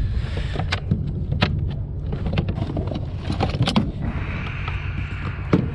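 Handheld marine VHF radio being tuned: a string of short clicks as it is handled and switched, then a burst of static about four seconds in that lasts a second and a half, over a steady low rumble.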